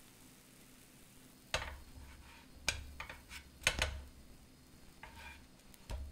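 Slices of white bread toasting in a nonstick frying pan, lifted and turned by fingers. After a quiet first second and a half come a handful of light taps and scrapes of the crisp bread against the pan, with a few soft thuds.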